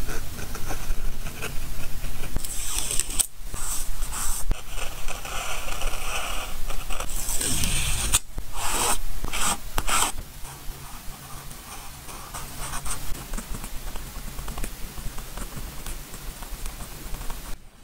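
Stickers peeled from their backing paper and pressed and rubbed down onto a paper journal page with a fingernail: close scraping, crinkling and rustling of paper. It is loudest in the first half, gets quieter after about ten seconds, and cuts off just before the end.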